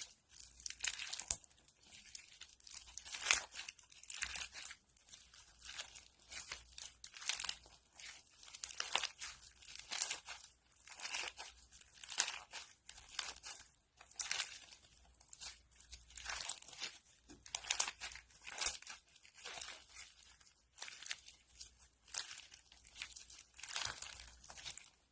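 Crunchy slime squeezed and worked by hand, giving a steady run of crackling, crunching pops several times a second.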